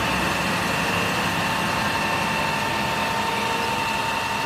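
Isuzu FVZ water tanker truck's engine running steadily while its roof-mounted water cannon sprays, with a steady rushing hiss and a thin high whine over the engine.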